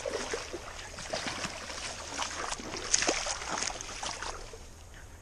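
Hooked salmon thrashing and splashing in shallow water. The splashing dies away after about four seconds.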